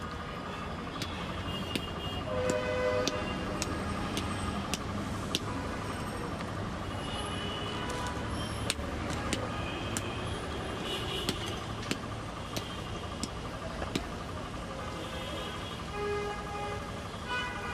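Steady street traffic din with short horn toots, and scattered sharp crackles from a small twig-and-straw cooking fire.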